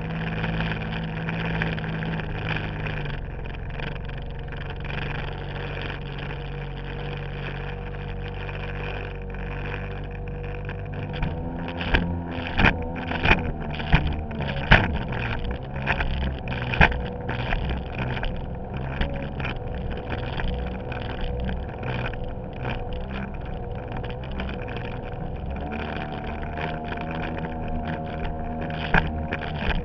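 Yamaha WaveRunner engine running under way, its pitch dropping a little about 3 s in and rising again near the end. From about a third of the way in, sharp slaps come as the hull hits the chop, with water rushing past.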